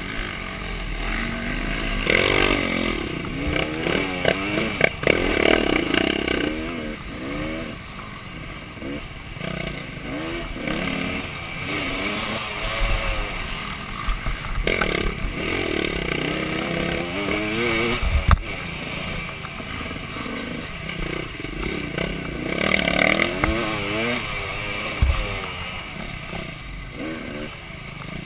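Dirt bike engine revving up and down repeatedly as it is ridden over a rough trail, with clattering and a sharp knock about eighteen seconds in.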